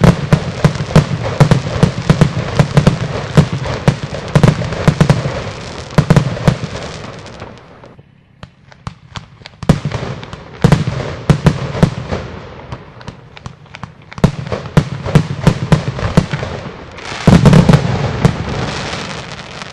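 Multi-shot consumer firework firing a rapid string of shots, each launch and burst a sharp bang with a deep thud. The shots come in volleys with a lull of about a second and a half around the middle and a short gap later, then a dense final flurry near the end.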